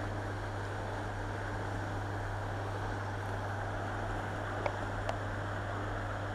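Steady rushing of water flowing out through the arched outlets of a small hydroelectric power plant, under a steady low hum, with two faint clicks near the end.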